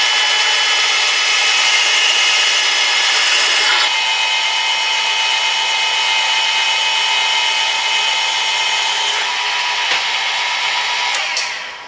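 Drill head of a crankshaft balancing machine running a 3/4-inch bit into a crankshaft counterweight, removing metal to balance the crank: a steady motor whine with cutting noise. The cutting noise eases about four seconds in and again about nine seconds in. Near the end the motor switches off and winds down with a falling pitch.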